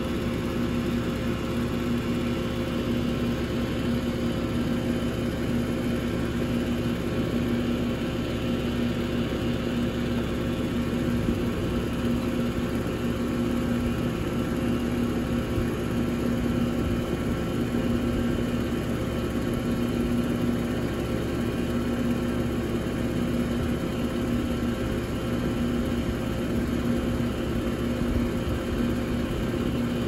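2001 York 2-ton air conditioner running steadily: an even hum with a few steady tones over a constant rush of fan noise.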